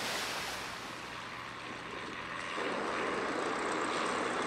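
Single-engine floatplane's propeller engine running as it moves across the water, growing louder about halfway through, over a steady rushing noise.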